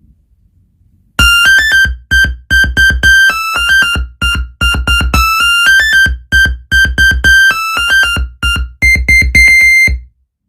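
Monophonic phone ringtone melody played loud through a JBL PartyBox 310 speaker with bass boost. It is a quick run of single beeping notes, each with strong low bass beneath it. It starts about a second in, ends on a few repeated higher notes, and stops shortly before the end.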